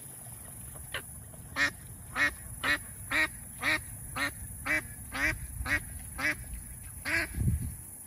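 Waterfowl calling: a regular series of about eleven short, loud calls, roughly two a second, starting about a second and a half in. A low rumble comes near the end.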